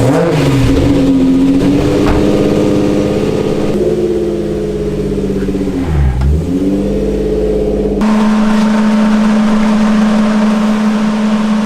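Car engine running and revving, its pitch dipping and climbing again around six seconds in. About eight seconds in it cuts off abruptly and gives way to a steady hum.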